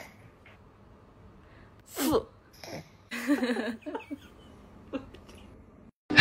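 A few short, sneeze-like nasal blasts into a tissue held to a cat's nose. The clearest one falls in pitch about two seconds in, with fainter ones after it.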